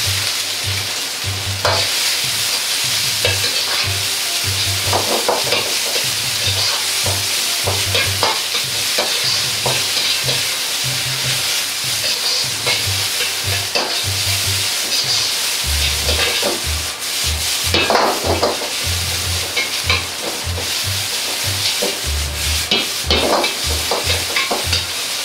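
Green pepper and bamboo shoot strips sizzling in a hot wok over high heat as a metal ladle stirs and turns them. The ladle scrapes and knocks against the wok again and again over a steady frying hiss.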